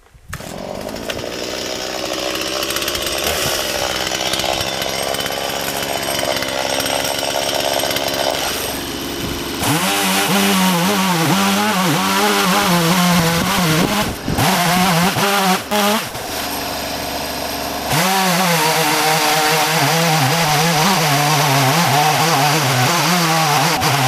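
Chainsaw cutting into the base of a dead tree to fell it. The first ten seconds are a rough, noisy run. After that the engine settles into a high steady whine in the cut. It drops out twice for a moment a few seconds later, falls back for a couple of seconds, then pulls steadily again until near the end.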